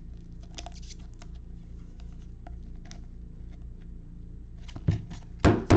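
Baseball cards and a plastic card sleeve handled by gloved hands: faint scattered ticks and scrapes, then two sharper clicks a moment apart near the end.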